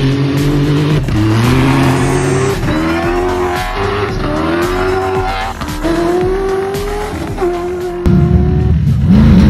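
Rally-raid car engine revving hard as it accelerates away, climbing in pitch and dropping back at each upshift, several gear changes in a row. About a second before the end, a louder, deeper rumble takes over.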